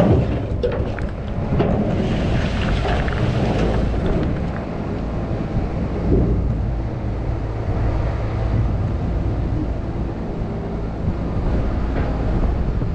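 Mini excavator's diesel engine running steadily while it digs, with a few sharp knocks in the first couple of seconds.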